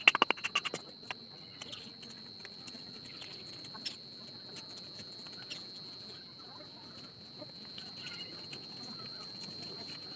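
A blade chopping into bamboo: a quick run of about eight sharp knocks in the first second, then lighter scattered taps and cuts as the bamboo is split into strips. A steady high-pitched whine runs underneath.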